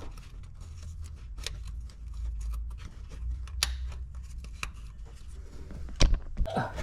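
Irregular sharp metallic clicks and taps from hand tools and parts being handled while the transmission pressure switch is refitted, with a louder knock about six seconds in, over a low rumble.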